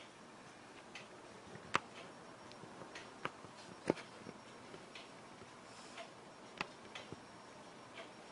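Faint ticking about once a second in a quiet small room, with a few louder sharp clicks in between, the loudest about two and four seconds in.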